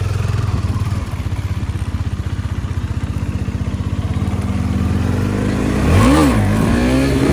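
Motorcycle engine running with a steady low pulse, then a quick throttle blip about six seconds in that rises and falls in pitch, after which it runs on a little higher.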